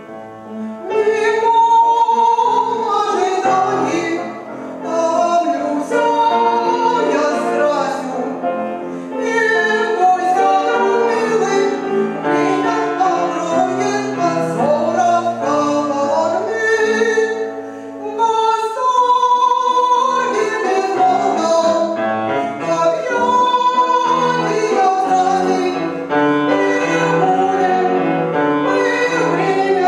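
Woman singing an operatic art song in a classically trained voice with vibrato, accompanied by a grand piano. The voice comes in about a second in, after a piano passage.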